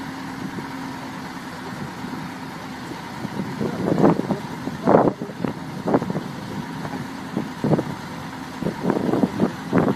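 Excavator diesel engine running steadily, joined from about three and a half seconds in by a run of irregular loud knocks.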